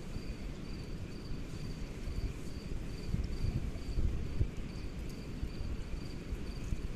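An insect chirping steadily at a high pitch, about three short chirps a second, over a low, uneven rumble.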